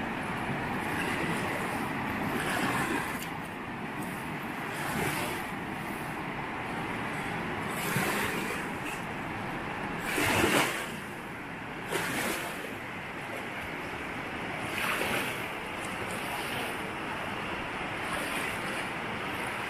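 Colorado River rushing over a rocky riffle: a steady wash of moving water that swells louder a few times, most strongly around the middle.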